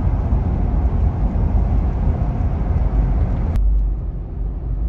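Steady road noise and rumble inside a moving vehicle's cabin, heavy in the low end. About three and a half seconds in it cuts abruptly to a duller rumble with less hiss.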